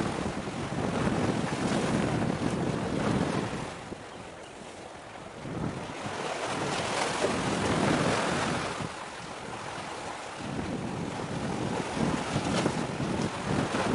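Wind buffeting an outdoor microphone in uneven gusts, a rough rumbling noise that swells and eases every few seconds.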